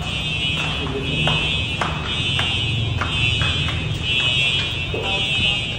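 Building fire alarm ringing without a break, its high ring swelling roughly once a second. Scattered footsteps and sandal slaps of people walking down stairs are heard under it.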